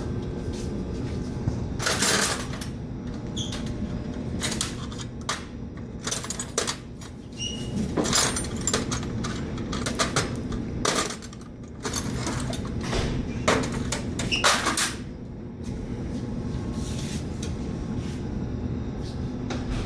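Sheet-metal covers of an electric furnace being handled and taken off: scattered clanks, clicks and short metal scrapes in several bunches, over a steady low hum.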